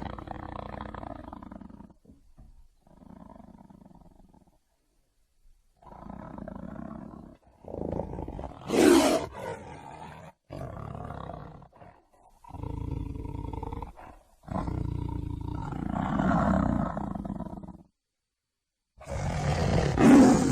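Tiger roaring and growling in a string of separate calls, each a second or more long with short gaps between. The loudest roar comes about nine seconds in, and another strong one starts after a second of silence near the end.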